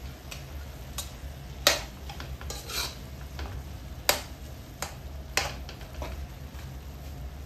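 Metal spatula stirring and scraping minced meat around a metal wok, with several sharp clinks of metal on metal.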